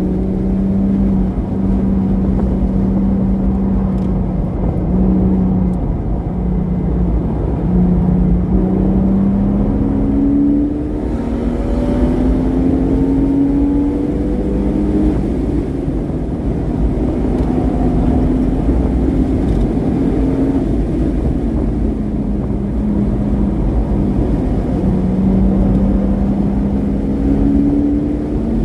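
Porsche Boxster S engine with a modified exhaust running hard on a race track. Its pitch climbs in repeated pulls, each broken off by a gear change, with stretches of steady running between, over a constant low rumble.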